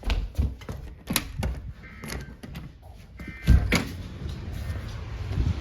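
A series of irregular knocks and thumps, with a heavier thump about three and a half seconds in.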